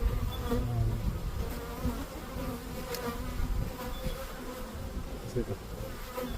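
Honey bees buzzing around an opened hive: many overlapping buzzes that waver in pitch over a low rumble, with a brief click about three seconds in.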